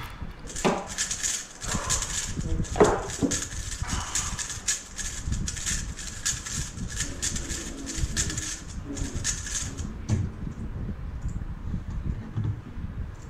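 Rapid clicking and clacking of a 3x3 speed cube being turned by hand: a dense run of quick clicks that stops about ten seconds in.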